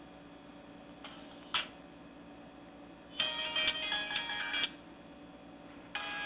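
Short snatches of Nokia E5 ringtones played through a Nokia 130's small speaker. A sharp click comes about a second and a half in, then a multi-note melody plays for about a second and a half and breaks off, and another begins near the end.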